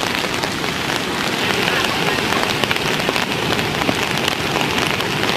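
Rain falling steadily: an even hiss with a dense patter of fine drop taps.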